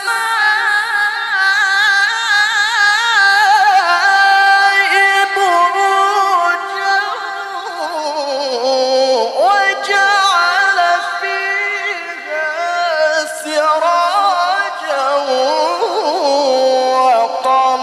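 A male Quran reciter chanting in the melodic tilawah style, amplified through a handheld microphone. He sustains one long, ornamented phrase with heavy vibrato; the pitch sinks lower about halfway through and climbs again near the end.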